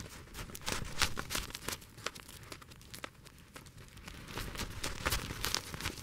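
Reindeer hooves crunching and clicking in packed snow as the herd moves about, in irregular steps with a few sharper, louder crunches.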